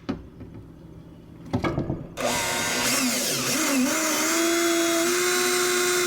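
Power drill given a short burst, then run steadily from about two seconds in, boring a pilot hole through underlayment board; its motor pitch dips and rises, then holds steady.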